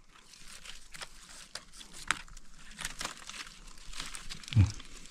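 Irregular rustling and crackling with many sharp little snaps and clicks, like dry material being handled or crushed, and a brief voice sound about four and a half seconds in.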